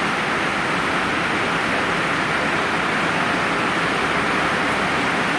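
Steady rain falling on a metal roof, an even hiss that holds at one level.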